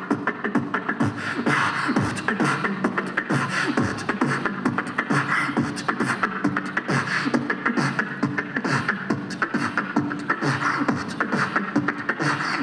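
A beatboxer performing live through a microphone and PA: a fast, steady beat of mouth clicks and snares over a low vocal bass line.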